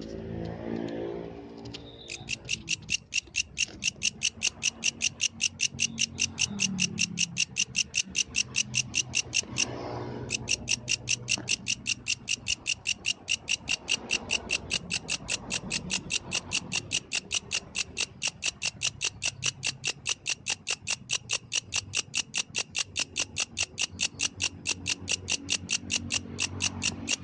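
A yellow grasshopper calling: an even, fast train of sharp high-pitched chirps, about five a second, starting about two seconds in, with one brief pause about ten seconds in. A low steady hum lies underneath.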